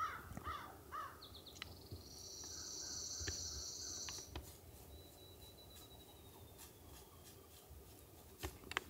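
A crow cawing, three harsh caws in the first second, followed by a high buzzing trill from a small bird lasting about three seconds.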